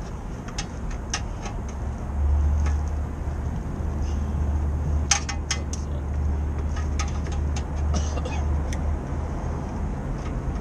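Scattered sharp metallic clicks and taps of hand tools working at a stuck motorcycle oil filter, a cluster of them about five seconds in. A steady low rumble sets in about two seconds in and fades near the end.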